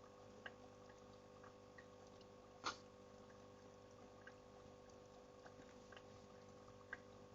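Faint steady rush of a waterfall under a low steady hum, with scattered small clicks and one sharper click a little under three seconds in.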